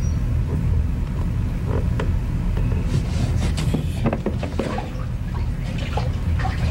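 A hand dipping and splashing in the water of a glass aquarium, with a few short knocks and splashes from about three seconds in, over a steady low hum.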